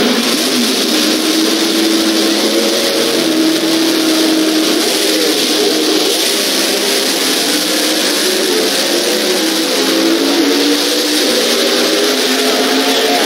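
Two drag-racing cars' engines, loud and close through a camcorder microphone. They hold steady revs at the starting line, then rise in pitch from about halfway through as the cars launch and accelerate down the strip.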